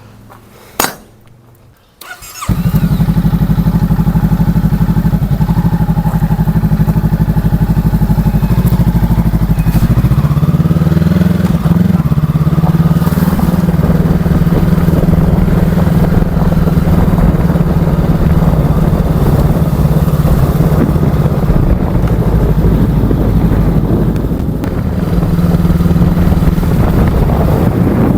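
Honda Rebel 500's parallel-twin engine starting about two seconds in after a click, then running loud and steady. About ten seconds in the engine note changes and starts rising and falling in pitch.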